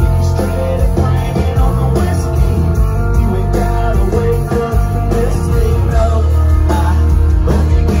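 Live country band playing loud through the concert sound system, heard from within the crowd: electric guitars, drums and a male lead singer.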